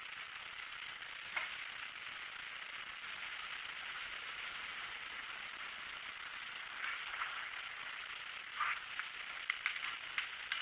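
Jones and Shipman surface grinder's abrasive wheel grinding, a steady hiss with sharp crackles, more of them in the last few seconds. The newly changed wheel is being trued.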